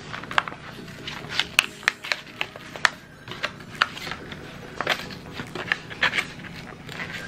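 Stiff plastic blister pack being pried off its cardboard backing card: a run of sharp, irregular clicks and crackles as the plastic flexes and the card tears free.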